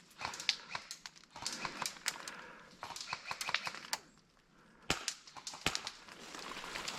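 Footsteps crunching irregularly on dry ground and brush, with a short pause and then two sharper cracks about a second apart.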